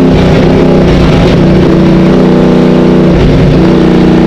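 Race car engine under power, heard loud from inside the cockpit. Its note sags slightly about three seconds in, then climbs again as the revs rise.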